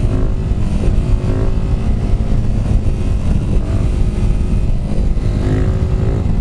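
KTM supermoto engine pulling in third gear through a long wheelie, its pitch held fairly steady with small rises, under a heavy rush of wind from road speed.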